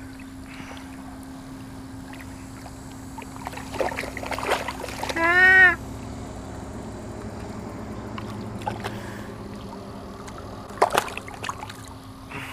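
A common carp splashing in shallow water at the edge of the rocks as it is released, over a steady rush of flowing water. A flurry of splashes comes about four seconds in, then a short cry that rises and falls in pitch, the loudest sound. Another splash comes near the end.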